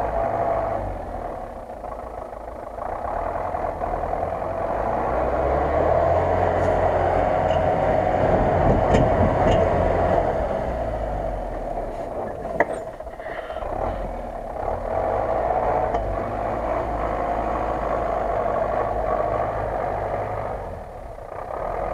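GAZ-66 four-wheel-drive truck's engine working hard under load on a steep climb up a snowy, muddy bank. The engine note grows louder over several seconds in the middle and eases off after about eleven seconds, with a single sharp knock about twelve and a half seconds in.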